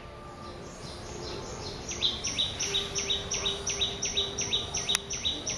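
A high-pitched animal call repeated rhythmically about three times a second, each note dipping briefly in pitch. It fades in and grows louder over the first two seconds, then carries on steadily over a constant outdoor background hiss, with a single sharp click near the end.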